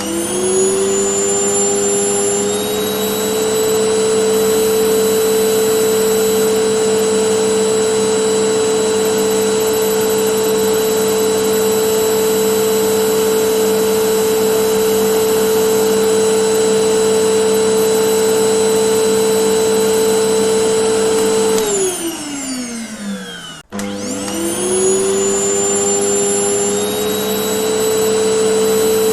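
Vacuum cleaner switched on, its motor spinning up to a steady high whine and running for about twenty seconds. It is then switched off and winds down with falling pitch, and a moment later it is switched on again and spins back up to full speed.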